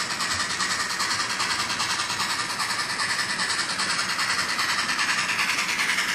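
Sound-decoder steam exhaust chuffs from a model 2-6-6-0 articulated locomotive running on a model layout: a quick, even beat of about five chuffs a second from its small onboard speaker, with no deep low end.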